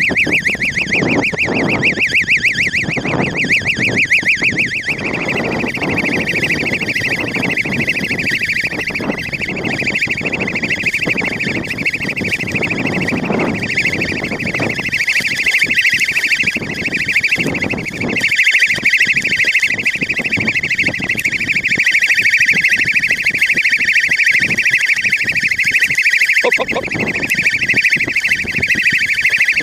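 Electronic siren warbling steadily on a high, fast-wavering tone, switched on to drive a deer out of the brush towards the shooter.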